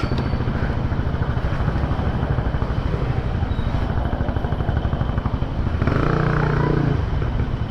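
Motorcycle engine running with rapid, even firing pulses. A short pitched sound rises over it about six seconds in.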